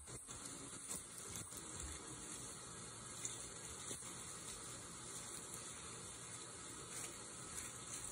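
Steady high hiss with a few faint crackles of dry leaves as kittens shift about on the leaf bedding.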